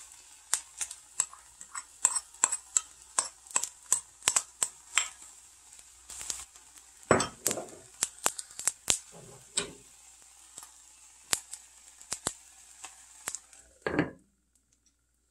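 Hot earthenware pot of rice sizzling, with sharp, irregular crackling pops over a faint high hiss. There is a louder clatter about seven seconds in, and near the end the pot's lid is set on with a single clunk.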